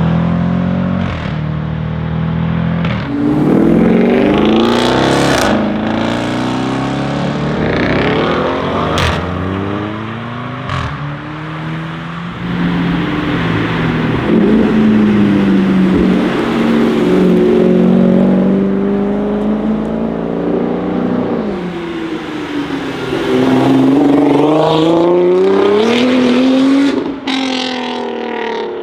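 Tuned Audi RS6 C7's twin-turbo V8 through an Akrapovic exhaust, accelerating hard several times with the pitch climbing and dropping between pulls. Sharp pops and crackles sound from the exhaust, several near the start and one near the end.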